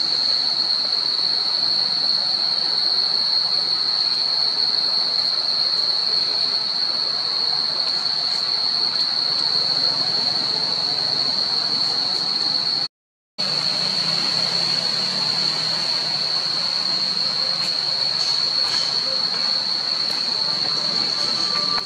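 Cicadas calling in a steady, unbroken high-pitched drone over a background hiss, cut off by a brief silence about thirteen seconds in.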